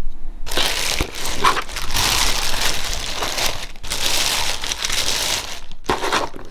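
Thin plastic bag crinkling and rustling as hands pull and pat it open, with a brief break partway through and one more short rustle near the end.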